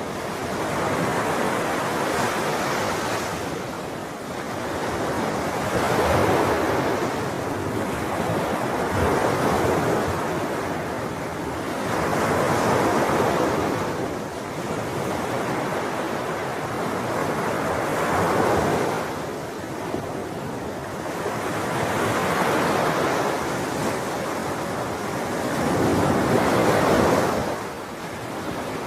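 Sea waves breaking, a steady rush of surf that swells and fades every few seconds.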